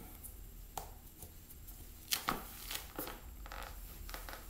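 Faint, scattered taps and scuffs of leather ballet flats shifting on a tile floor, with a hand rubbing at the shoe's heel; the sharpest few come about two seconds in.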